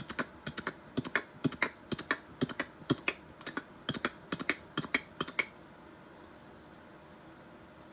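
Beatboxed galloping horse hoofbeats: quick mouth clicks and pops in a gallop rhythm, which stop a little over halfway through.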